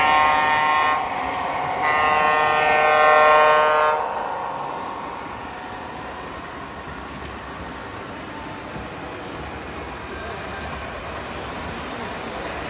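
O scale model diesel locomotive's sound-system horn blowing twice, a short blast then a longer one about two seconds long. It is followed by the steady rumble of the model freight cars rolling past on the track.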